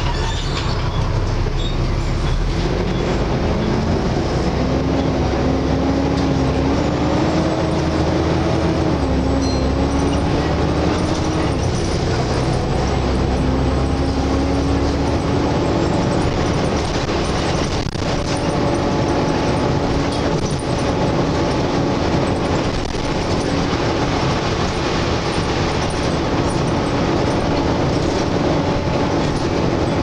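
Volvo B7TL double-decker bus under way, heard from the upper deck: its engine runs with a loud hoover-like whine over a heavy low rumble, the whine climbing in pitch as the bus gathers speed and then holding steady. A few body knocks and rattles come through in the second half.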